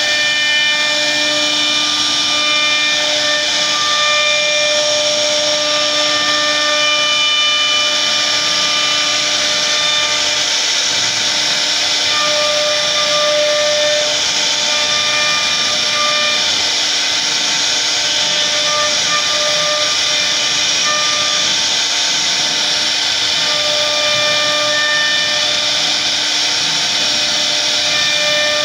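CNC router spindle cutting a relief carving into a wooden door panel: a steady high whine over a loud hiss, the whine's tones coming and going as the bit bites into the wood.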